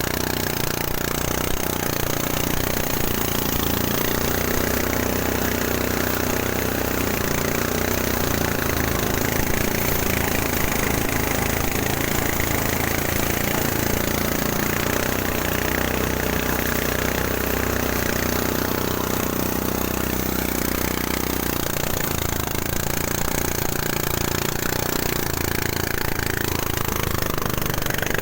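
Engine-driven rice threshing machine running steadily: a constant engine note under a dense, noisy rush.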